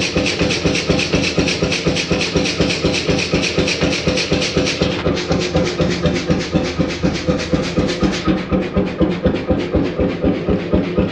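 1928 Beijer 13 hp hot-bulb two-stroke oil engine (10.4-litre single cylinder) running with a steady, even beat of firing strokes. A hiss over the beat thins out about five seconds in.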